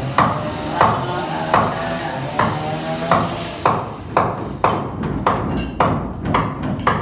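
Repeated hammer blows, each a sharp knock with a brief ring, about one and a half a second, then quickening to about two a second partway through.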